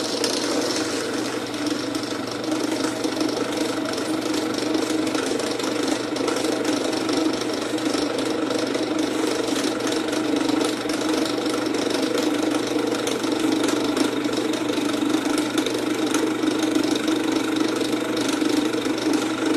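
Drill press spinning a ball-nose router bit at about 1450 rpm, milling a slot in pine as the compound table is traversed: a steady, loud machine sound.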